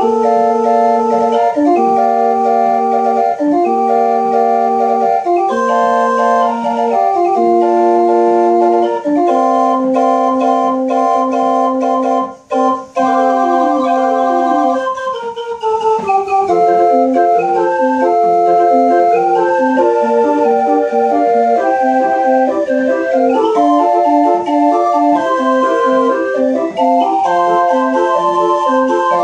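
Hand-cranked homemade Höffle-design barrel organ with wooden pipes, played from a punched paper roll: a held melody over bass and chords. There is a brief break about twelve seconds in, and after that the accompaniment turns to short repeated notes.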